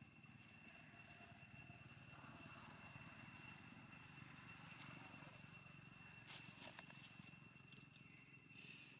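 Faint outdoor background: a steady high-pitched whine and a low rumble, with a few faint clicks about two-thirds of the way through and a short hiss near the end.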